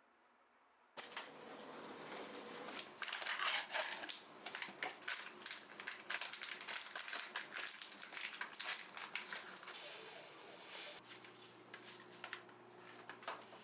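Close handling noises: a dense run of irregular clicks, crunches and rustles starting about a second in. A faint low steady hum joins near the end.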